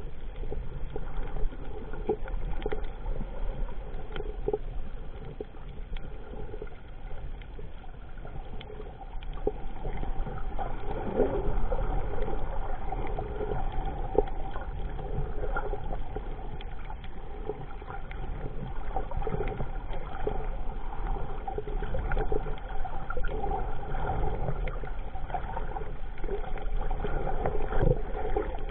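Underwater sound picked up by a camera in the water over a coral reef: a steady hum with a droning tone, a low rumble and scattered faint clicks.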